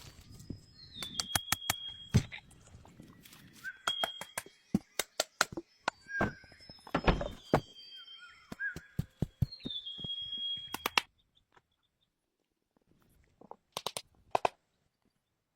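Irregular sharp knocks and clacks of wood being worked by hand, interspersed with short bird chirps. The knocking stops for a couple of seconds after about eleven seconds, then a few more knocks follow.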